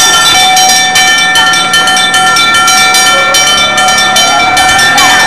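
Bells ringing rapidly and without a break, loud, with many strikes overlapping on a steady clang of sustained bell tones.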